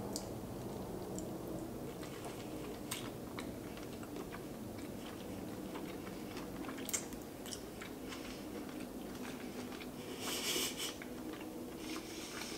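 Close-up mouth sounds of someone chewing cooked lobster meat dipped in lemon butter: soft wet clicks and smacks scattered throughout, with a brief louder, hissy smack or slurp about ten seconds in.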